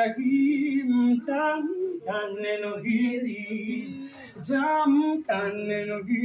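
Voices singing a melody without accompaniment, in short phrases of held notes.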